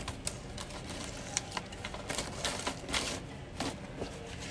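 Irregular light clicks, taps and rustles of a cardboard burger box being handled and slid across a tabletop, denser around the middle.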